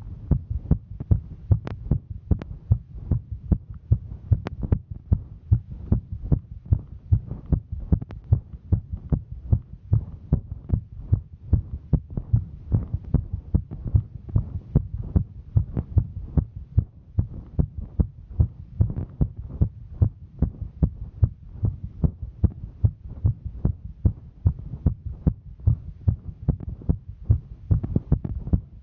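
A woman's heartbeat, recorded close up: steady, regular low-pitched beats that repeat evenly.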